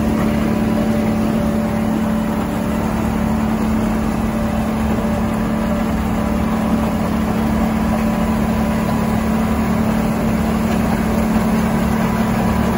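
A motor running steadily at one fixed speed, giving a constant pitched hum with no changes.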